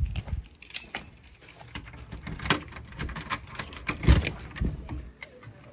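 A bunch of keys jangling and clinking while a house door is unlocked and opened, with a few dull thumps of handling. The loudest thump comes about four seconds in.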